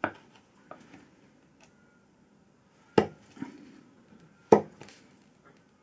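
Steel bench chisel pushed by hand into a knife line in hardwood, giving three short, sharp clunks with a few faint ticks between: each clunk is the chisel stopping against the knife-line wall as it pares out a V relief.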